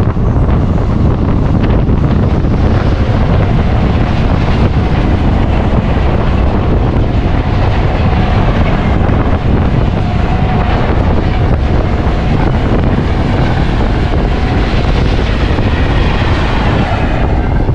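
Wind buffeting the microphone over the steady running noise of a moving Indian Railways express train.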